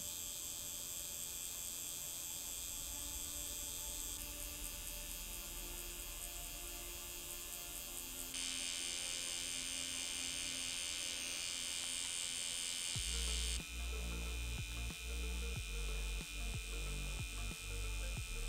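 Pen-style permanent-makeup tattoo machine running steadily as its needle works pigment into the lips: a thin high electric whine. About thirteen seconds in, a low hum joins and breaks off briefly several times.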